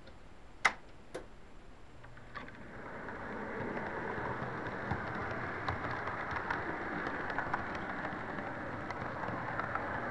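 HO-scale model train running along the track, picked up by a small camera riding on it: a steady rolling rattle of wheels on rails with scattered light clicks. Two sharp clicks come about half a second apart near the start, and the running noise grows louder from about three seconds in.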